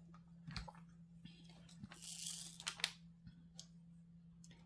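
Faint clicks of a diamond painting drill pen picking up resin drills from the tray and pressing them onto the canvas. A short rustling hiss comes about two seconds in, followed by two sharper clicks.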